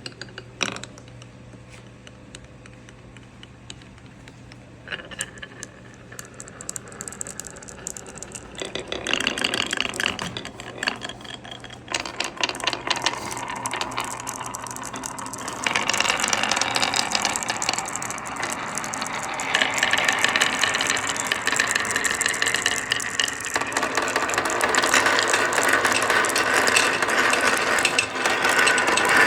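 Marbles rolling and clattering down a wooden marble run, a fast run of clicks and rattles. It starts faint and grows louder in steps, about a third of the way in and again past the middle, as more balls join the track.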